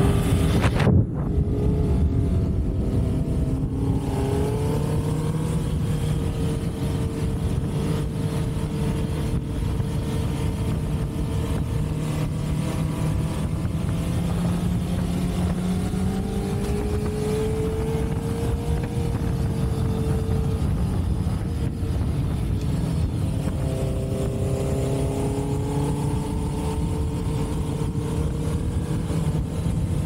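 Motorcycle engine running while riding, its pitch slowly rising and falling with the throttle, over steady wind and road rumble. The rider says this bike has a problem and is running short of power.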